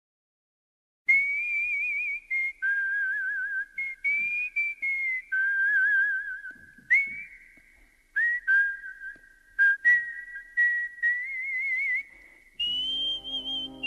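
A tune whistled with a wavering vibrato, sliding from note to note, starting about a second in. Backing music comes in under the whistling near the end.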